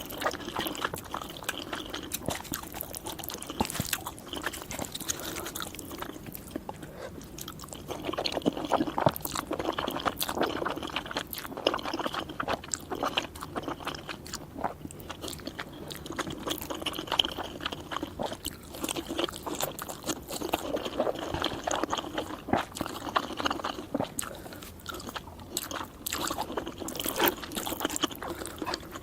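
A person chewing and biting noodles, with a steady, uneven run of short clicks and crunches from the mouth.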